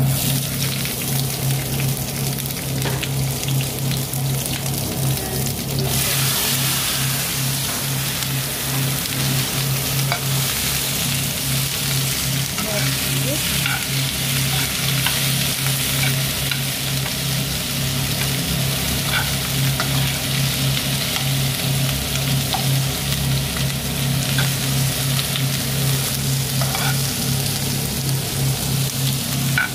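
Sliced onion, tomato and green vegetables sizzling in oil in a frying pan on a gas stove, with occasional light clicks of a utensil in the pan. The sizzle grows louder about six seconds in, over a steady low hum.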